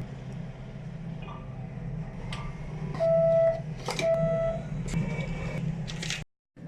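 Bank ATM beeping twice: two loud, steady beeps of about half a second each, a second apart, over a low machine hum, with scattered short clicks.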